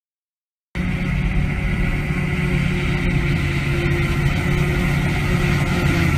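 Self-propelled forage harvester and tractor running steadily while the harvester chops grass from a swath and blows it into a trailer. A steady machine drone with a low hum, starting suddenly about a second in after silence.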